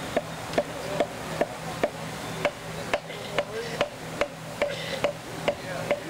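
Sharp knocks at a very even pace, a little over two a second, over a low steady hum.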